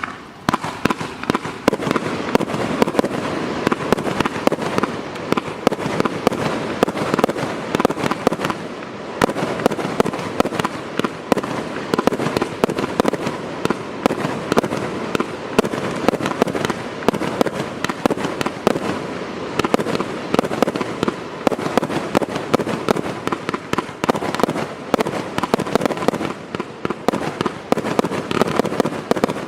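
'The Beast From The East' garden firework going off: a dense, rapid stream of sharp bangs that starts suddenly and keeps up, with brief lulls about nine and twenty-four seconds in.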